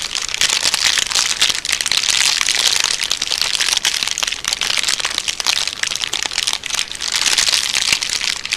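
Dense, continuous crackling and crinkling made of many tiny clicks, as from a material being crumpled, played as a homemade dummy sound effect. It cuts off abruptly at the end.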